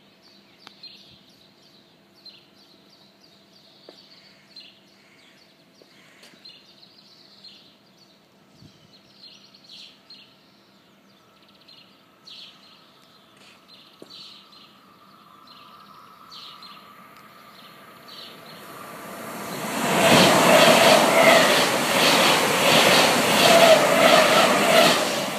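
SBB ICN tilting train (RABDe 500) running through a station at speed without stopping. After a long quiet stretch it grows steadily louder, and from about twenty seconds in it becomes a loud, dense rushing noise as the coaches pass close by.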